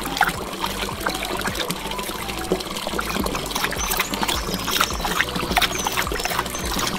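Water from a miniature water pump trickling and splashing out of a small spout into a toy trough, with many small drips and splashes and a low steady hum underneath.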